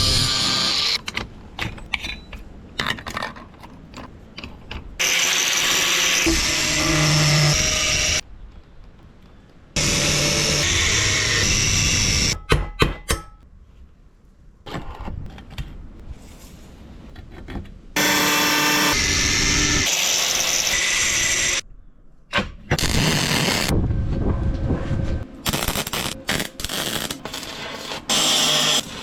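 Metalworking power-tool noise in loud stretches of a few seconds each, starting and stopping abruptly, with quieter knocks and clanks in between.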